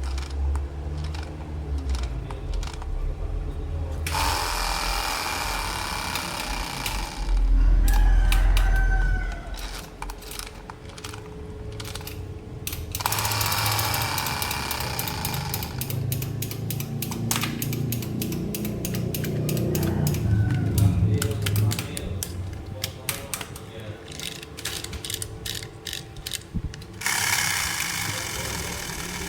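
Hands handling plastic toy parts and packaging: many small clicks and knocks, with a few stretches of rustling lasting a few seconds each.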